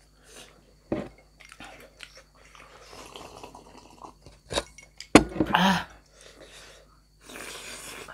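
Close-miked chewing and biting of steamed momo dumplings, wet clicks and smacks scattered through. The loudest mouth noise comes just after five seconds in, and there is a longer hissy stretch near the end.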